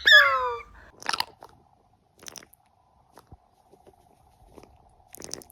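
A parrot's squawk sliding down in pitch at the start, then a few scattered short crunches and clicks, the loudest near the end, over a faint steady hum.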